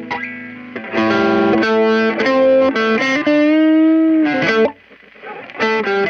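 Squier Stratocaster electric guitar through a Kokko overdrive pedal and a Peavey BackStage Plus amp, playing a lead line of single picked notes. It holds one longer note with a slight bend about three to four seconds in, pauses briefly near five seconds, then the notes resume.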